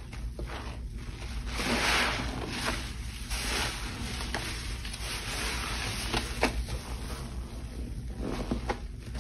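Water frothy with cleaning products sloshing and swishing in uneven swells, with a few small clicks.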